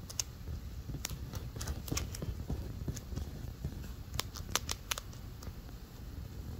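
Standard grey chinchilla crunching a dry treat held in its front paws: irregular crisp crunching clicks, with a quick run of them about four to five seconds in.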